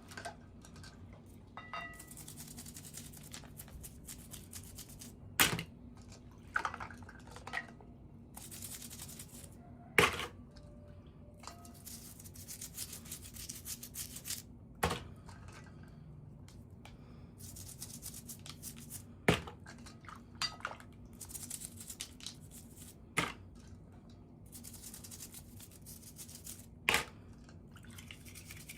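Hands handling and opening toy doll packaging: soft rustling, with a sharp plastic click or snap about every four to five seconds.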